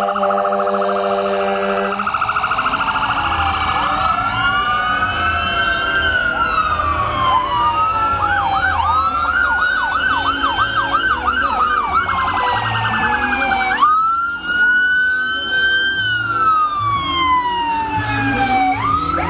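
Several electronic emergency-vehicle sirens sounding together as parade ambulances and police cars pass, their slow rising-and-falling wails overlapping. A fast yelp comes in the middle and again at the very end. A steady horn-like tone sounds for the first two seconds.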